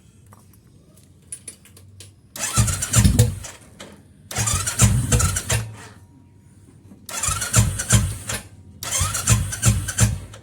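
Royal Enfield Classic 350 single-cylinder engine being cranked four times in short bursts of about a second each, through a short 'dholki' exhaust pipe, without catching and running between attempts.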